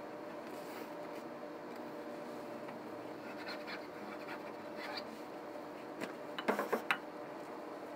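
Hands rubbing and scraping billiard cloth along the edge of the pool table bed, with a quick cluster of sharp clicks near the end.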